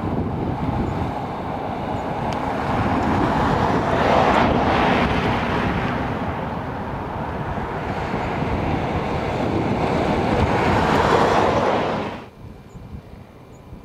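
Road traffic passing close by: tyre and engine noise that swells and fades twice, then stops abruptly near the end, leaving a quieter hush.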